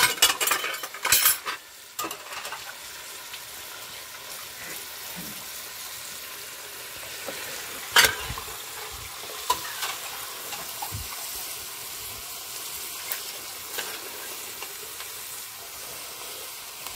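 A metal ladle scraping and clinking in a blackened pot of stewed meat, loudest in the first two seconds, with one more knock about eight seconds in. Under it, a steady hiss from the stew simmering over a wood fire.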